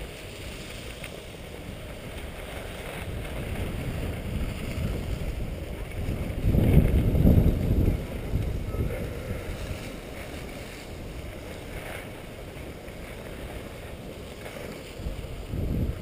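Skis sliding over packed snow with wind rushing on the microphone, a steady noisy rush that grows louder for a second or two about halfway through.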